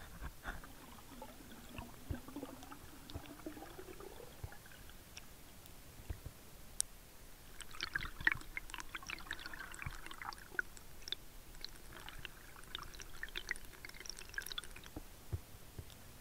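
Faint underwater sound: scattered clicks and crackles, with a low hum gliding slowly upward over the first four seconds and two spells of denser crackling, about eight and thirteen seconds in.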